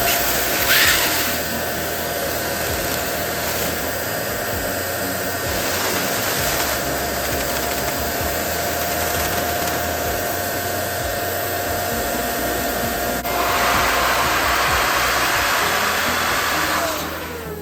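Electric balloon pump running steadily to inflate a balloon. Its motor hum sits over a rush of air, the rushing grows louder about 13 seconds in, and the motor winds down near the end.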